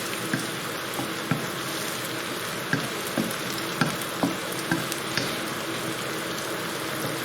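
Onions, garlic and chillies with garlic-chilli paste sizzling steadily in hot oil and ghee in a pan. Scattered clicks of the utensil knock against the pan as the mix is stirred.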